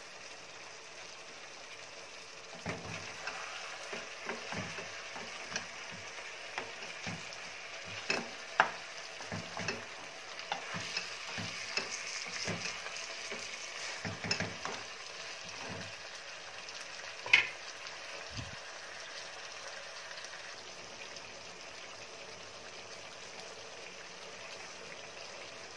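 Chicken pieces sizzling in a frying pan while a wooden spatula stirs and turns them. Scrapes and knocks against the pan come irregularly for most of the first two-thirds, with the loudest knock about two-thirds through.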